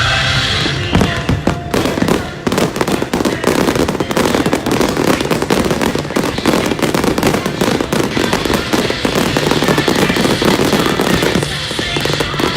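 Fireworks and firecrackers going off in a dense, rapid barrage of cracks and bangs. They start about a second in and die down near the end.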